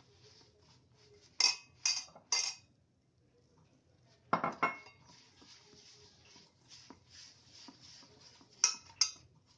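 Flour and water being worked into dough by hand in a stainless steel bowl: a soft, crumbly rustle with sharp clinks and knocks on the steel bowl. There are three quick clinks about a second and a half in, another about four seconds in, and two near the end.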